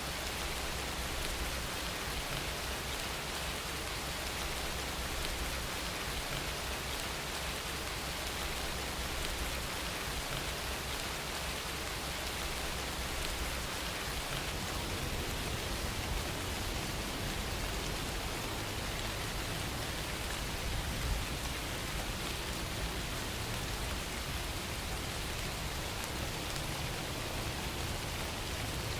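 Steady rain falling, an even hiss of drops on surfaces throughout, used as a relaxing background soundtrack.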